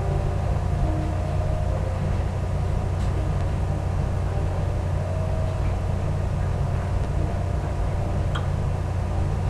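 A steady low hum, with faint music trailing off in the first couple of seconds and a faint tick or two.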